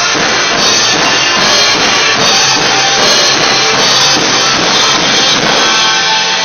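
Rock song playing loud, with a full drum kit and guitars, in a harsh, poor-quality recording.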